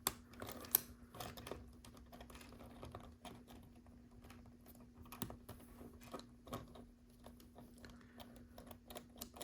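Small plastic LEGO pieces clicking and tapping as they are handled and pressed onto Technic ball connectors, in irregular light clicks throughout, over a faint steady hum.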